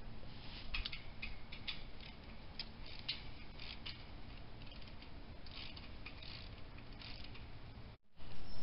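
Irregular metallic clicks, creaks and scrapes as chain-link fence panels are handled and worked into place, in uneven clusters. The sound breaks off suddenly near the end.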